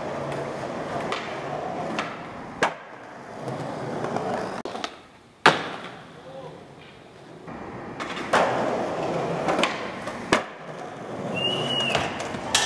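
Skateboard wheels rolling over concrete, broken by several sharp wooden clacks of the board popping and slapping down, the loudest about five and a half seconds in.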